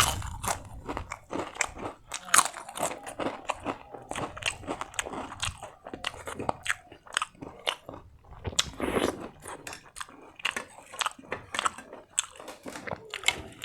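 A person biting and chewing crunchy food close to the microphone: many short, sharp, irregular crunches.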